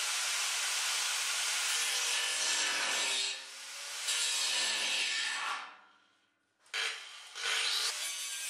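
Angle grinder grinding the corner of a steel square-section tube. The grinding eases off briefly about three seconds in, fades almost to nothing just after six seconds, then starts again abruptly.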